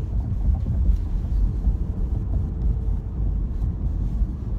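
Low, steady road and tyre rumble inside the cabin of a moving Tesla Model S Plaid, with no engine note, as the car is electric.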